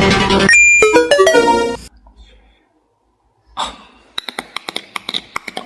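A short electronic jingle of quick stepped tones, then after a pause a rapid run of sharp clicks, about eight a second.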